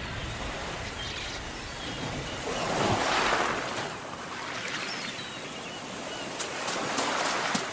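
Sea waves washing on a shore, one swelling up and breaking about three seconds in, with a few sharp clicks near the end.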